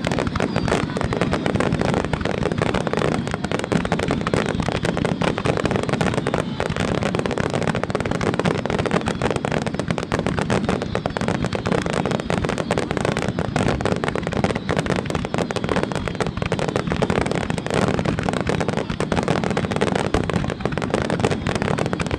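Fireworks finale barrage: aerial shells bursting in a dense, unbroken string of booms and crackles with no pauses.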